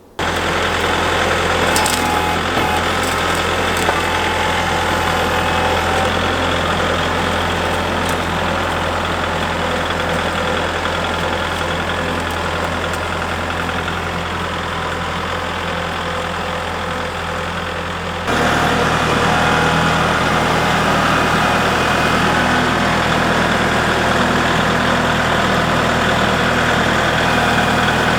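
Portable sawmill's engine running steadily; about two-thirds of the way through the sound changes abruptly, becoming louder and fuller.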